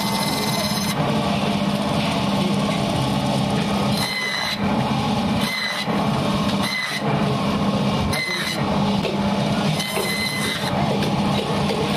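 Bone-cutting band saw running steadily as pieces of fish are pushed through its blade by hand. A short high tone rings out several times over the steady hum.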